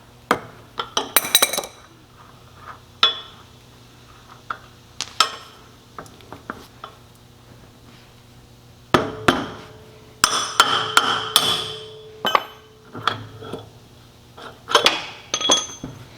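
Adjustable wrench clinking and clanking on the wheel axle nut of a Ferris zero-turn mower as the wheel is loosened and taken off: scattered sharp metallic knocks with a short ring. There is a small burst about a second in and a longer run of clanks around nine to twelve seconds in.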